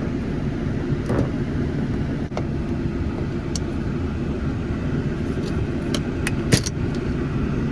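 A few short sharp clicks and taps of a plastic car interior light cover being pried loose with a flathead screwdriver, the loudest near the end, over a steady low rumble.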